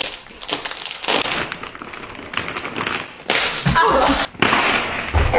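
Metallized plastic snack bag crinkling as it is pulled at, then tearing wide open a little after three seconds in, with chips spilling out. A short startled vocal exclamation comes through over the tear.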